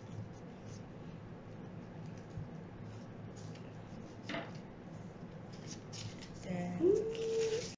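Cut-out paper hearts rustling and scraping as hands link them into a garland, with small clicks and a sharper tap a little past the middle. Near the end a short pitched sound rises and then holds.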